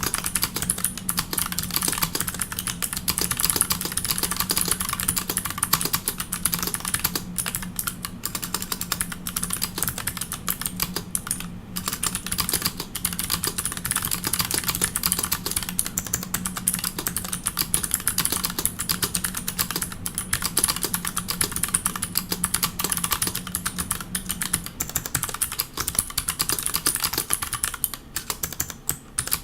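Fast, continuous typing on a Pearl 40% mechanical keyboard with custom clicky MX switches and GMK keycaps: a dense stream of sharp key clicks with a brief pause about twelve seconds in.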